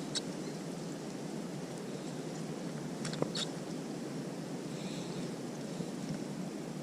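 Steady outdoor background hiss with a few faint, sharp clicks.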